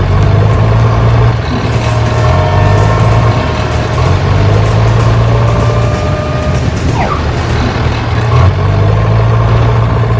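A motor running steadily with a loud low hum, with faint higher tones drifting above it in the middle.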